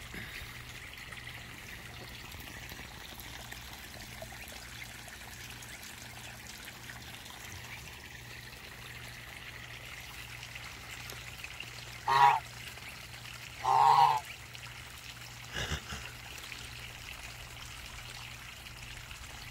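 Waterfowl honking: two loud short calls about two thirds of the way in, two seconds apart, then a fainter one shortly after, over a steady trickle of running water.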